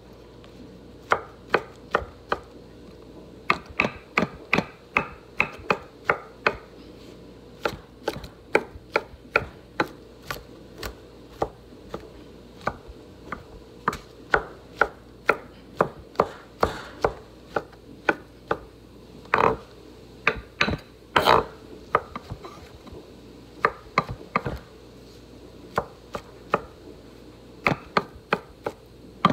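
Chef's knife chopping mushrooms and leafy greens on a wooden cutting board: sharp, irregular strikes about two a second, some in quick runs.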